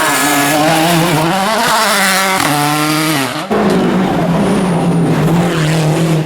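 Rally car engine running hard, its revs rising and falling repeatedly through gear changes. About three and a half seconds in the sound changes abruptly to a steadier, held engine note.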